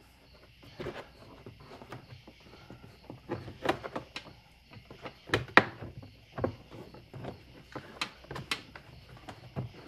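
Plastic interior door trim panel knocking and clicking against a car door as it is fitted and lined up: irregular sharp knocks and rattles, the loudest about five and a half seconds in.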